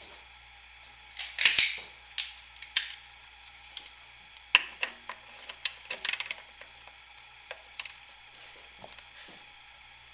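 Sharp metallic clinks and clanks of an 18 mm socket wrench being fitted to the serpentine belt tensioner, irregularly spaced, the loudest about one and a half seconds in.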